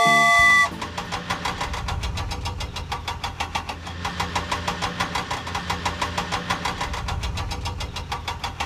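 A brief chime, then a cartoon vehicle's engine sound effect running steadily with a rapid, even chugging beat.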